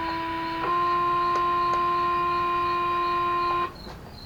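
Fire-department two-tone paging alert from a pager receiver: a short first tone, then a slightly higher second tone held for about three seconds that cuts off sharply. These are the alert tones opening a pager test page.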